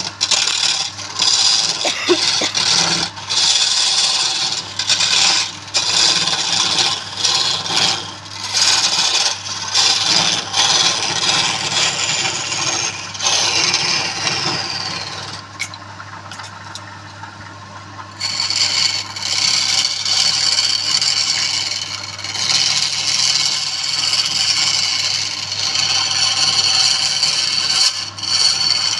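A tool scraping and rasping on wood in uneven strokes over a steady low hum; the scraping stops for a couple of seconds a little past halfway, then starts again.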